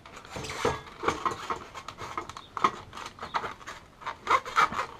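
Handling noises: scattered clicks, knocks and rustles as the screw and accessory box that is wired inside a PC case is worked loose.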